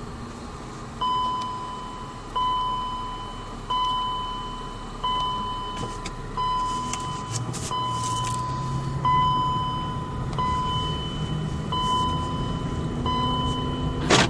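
A car's warning chime sounds ten times, a single bright tone about every second and a half, starting about a second in, over the car's engine and road noise. From about halfway through, the engine note climbs as the car speeds up, and a sharp click comes near the end.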